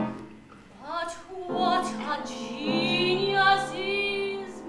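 A woman singing a musical-theatre song with piano accompaniment, rising through a short phrase and then holding a long note with vibrato.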